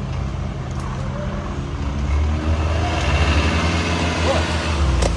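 Off-road 4x4 vehicle's engine running steadily, growing louder about two seconds in.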